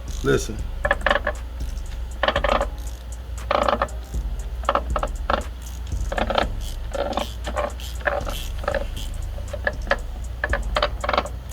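Irregular short bursts of metallic clicking and clanking from hand work on a torn-down Yamaha R1 motor, coming every second or so, over a steady low hum.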